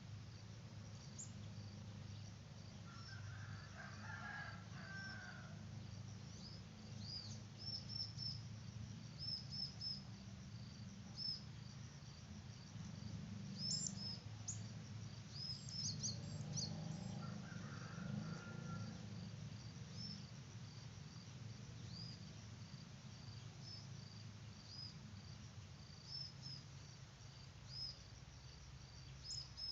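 Faint rural outdoor ambience: a steady run of high chirps from insects and small birds, with a rooster crowing twice, once a few seconds in and again near the middle.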